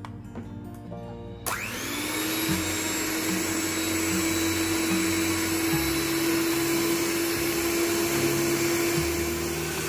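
Kenwood electric hand mixer switched on about a second and a half in, then running steadily at speed with a steady motor whine, its twin beaters whipping egg whites into foam.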